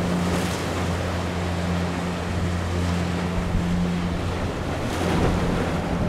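Ocean surf breaking, with gusty wind buffeting the microphone, over a steady low hum.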